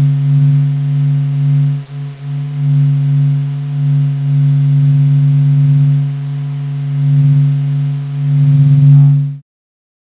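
A steady, low electronic hum presented as the 'sound of the Sun', a space sonification rather than a recording of anything in air. It holds one low pitch with an octave above it, swells and eases in loudness, and cuts off suddenly about nine seconds in.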